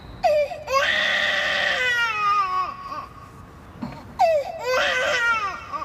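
Baby crying: two long wails, the first starting just after the start and falling in pitch as it fades, the second about four seconds in.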